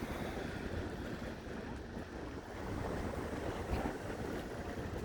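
Wind buffeting the phone's microphone in a low, fluttering rumble, over the steady wash of Lake Michigan waves.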